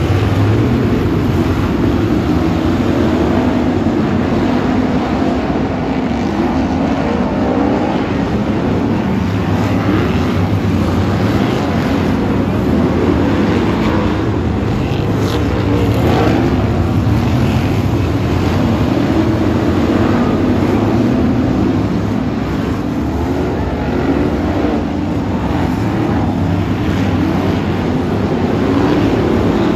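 A pack of BriSCA F1 stock cars racing, their V8 engines running together in one loud, unbroken drone.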